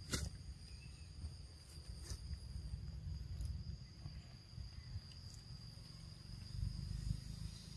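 Insects chirring with a steady high note, over a low rumble. A few sharp clicks sound, the loudest just after the start and another about two seconds in.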